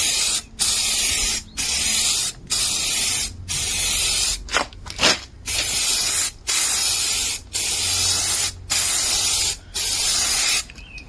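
Aerosol can of tint spray hissing in a string of short bursts, roughly one a second with brief gaps between, including two quick puffs midway, as light coats are sprayed onto a car's rear light lens.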